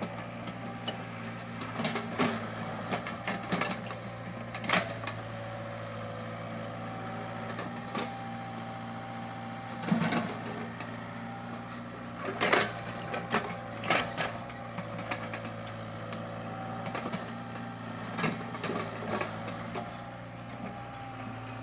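Sumitomo mini excavator running steadily with a whine from its hydraulics, broken by irregular knocks and clatters as the machine works on a eucalyptus stump, the loudest a little over halfway through.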